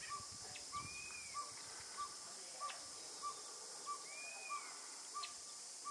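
Northern pygmy-owl calling: a steady series of single, even-pitched toots, about one and a half a second.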